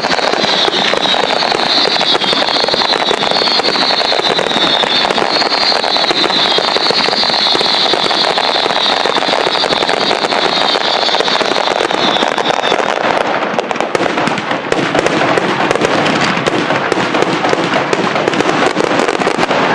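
Fireworks finale: a dense, continuous barrage of bursting shells and crackling. A high hiss runs over it and cuts out about two-thirds of the way through.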